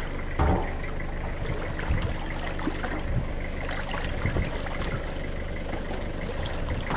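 River water trickling and lapping around a half-submerged car, over a steady low engine hum, with a dull knock about half a second in.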